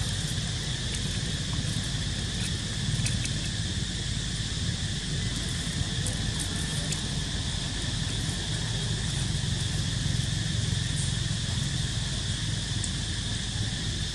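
Steady chorus of insects, a constant high buzz that does not let up, over a steady low rumble.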